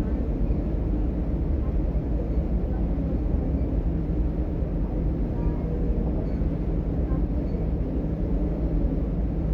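Inside a DB Class 425 electric multiple unit running between stations: a steady low rumble of wheels on track and running gear, without breaks or sudden knocks.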